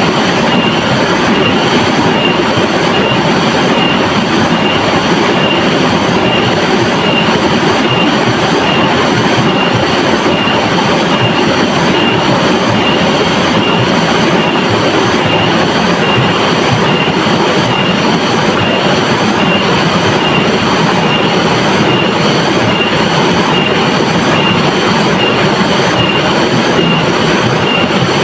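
River water flowing steadily, a dense even rush with no breaks.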